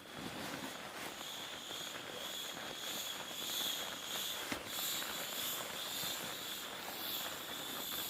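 Footsteps crunching through snow: many small irregular crunches over a steady hiss.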